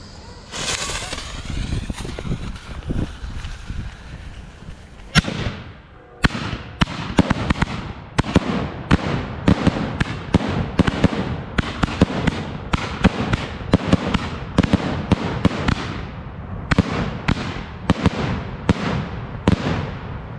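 A rack of canister shell salutes firing. About five seconds of fuse hiss is followed by one sharp bang, then a long rapid volley of loud reports, roughly two a second, that stops shortly before the end.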